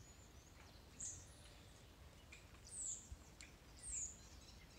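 A small bird calling a short, high note that falls in pitch, three times, over a quiet background. Faint scrapes of a carving knife paring sycamore wood can be heard between the calls.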